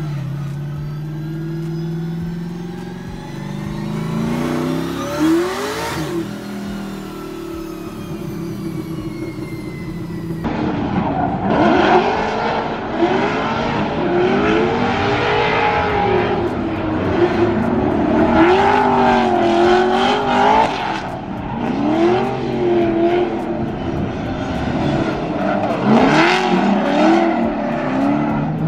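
Drift car engine running hard, heard from inside the smoke-filled cabin, its pitch climbing sharply about five seconds in. About ten seconds in, drift cars heard from the stands: engines revving up and down again and again over the noise of sliding tyres.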